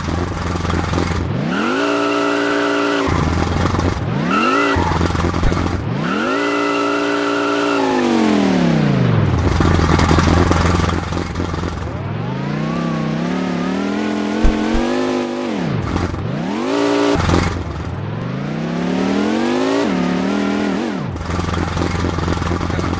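An engine idling and being revved about six times. Each rev climbs in pitch and falls back to idle; some are quick blips and some are held for a few seconds. A single sharp knock comes a little past halfway.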